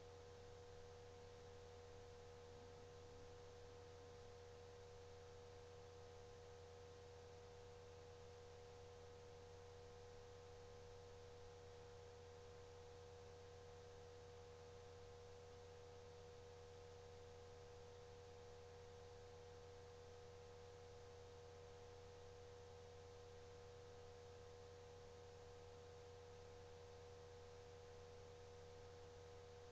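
Near silence: a faint, unchanging electrical hum with a steady tone above it and light hiss.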